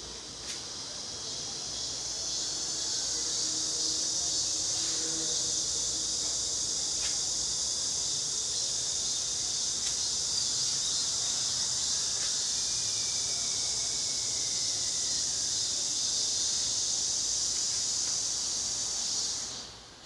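A cicada singing close by: one continuous high-pitched buzz that swells over the first couple of seconds, holds steady, then stops abruptly near the end.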